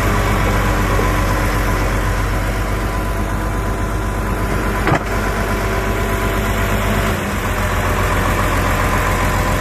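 Diesel engine of a crawler bulldozer running steadily while the machine works, pushing mud with its blade. A single sharp clank comes about five seconds in, and the engine note changes slightly a little after seven seconds.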